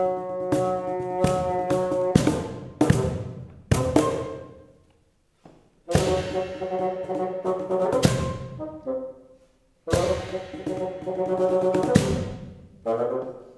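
Bassoon and cajón duet: the bassoon plays sustained low notes while the cajón is struck with sharp, ringing hand strokes. The music breaks off into short gaps twice, about five and ten seconds in.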